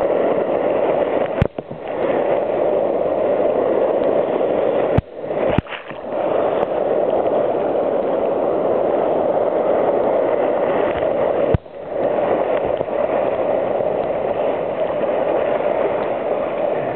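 Whitewater rushing around a kayak running rapids, heard close up from the boat. The rush is loud and steady and drops out suddenly for a moment several times.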